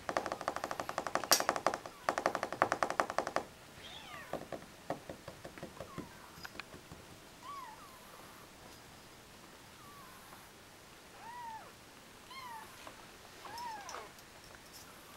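Three-week-old kittens mewing: short, high mews, each rising and falling in pitch, a few seconds apart. At the start, a loud burst of very rapid rattling taps lasts about three seconds, followed by a few scattered taps.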